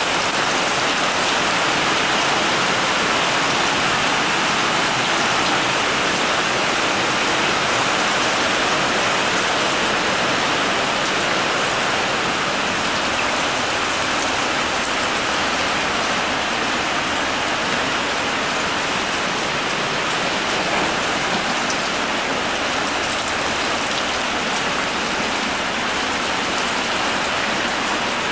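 Rain falling steadily, an even hiss with no let-up.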